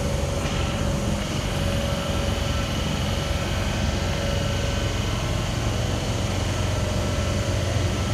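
NSW V set intercity double-deck electric train running at the platform: a steady low mechanical hum with a faint steady whine above it.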